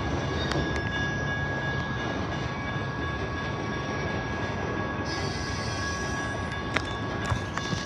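Freight train of autorack cars rolling past, a steady rumble of wheels on rail with a thin, steady high-pitched wheel squeal over it. A few sharp clicks come near the end.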